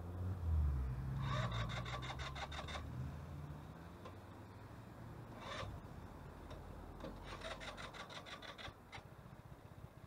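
A buzzy, rasping horn sounds three times: a blast of nearly two seconds, a short toot, then another long blast. A low rumble underneath is loudest in the first seconds and then fades.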